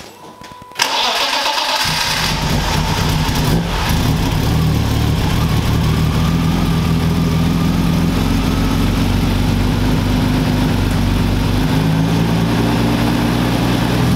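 BMW S50 straight-six in an E36 M3 cranked by its starter for about a second, then catching and running at a steady idle. This is its first start after fresh rod bearings and an oil fill.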